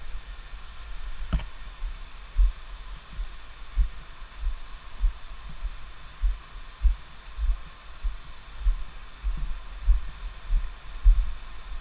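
Dull low thuds of footsteps on stones, about one every half second to second, jolting the camera as the wearer walks. A faint steady hiss of river rapids lies underneath, and a sharper knock comes about a second and a half in.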